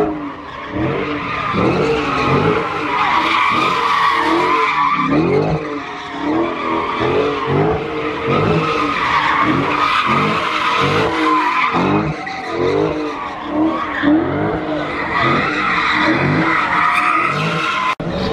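A car spinning its tires hard: a steady tire screech, while the engine revs climb and drop over and over, less than a second apart.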